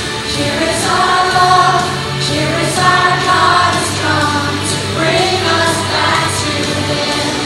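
Group singing in unison over an upbeat pop-style backing track with bass and drums.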